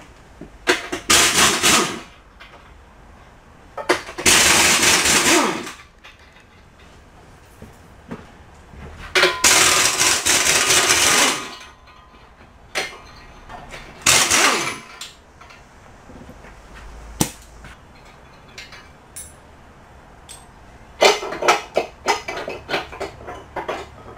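Impact wrench hammering in four bursts of one to two seconds each, breaking loose and running off the bolts of a jackshaft's bearing housing. Near the end, a run of light metallic clinks and knocks.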